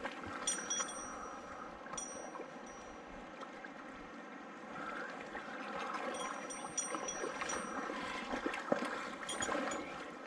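River water running and gurgling, with a few brief high-pitched ticks at intervals.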